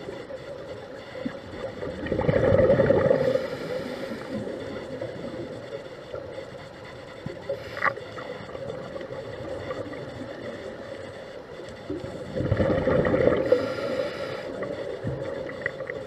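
Underwater bubbling of a scuba regulator's exhaled breath, two exhalation bursts about ten seconds apart, with quieter hiss between them.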